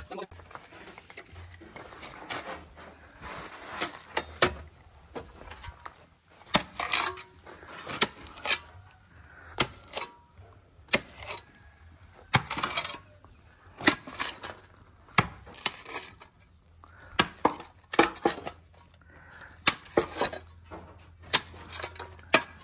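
Metal shovel blade digging into rocky soil and broken concrete rubble: repeated sharp clinks and scrapes, often in quick pairs, about once a second.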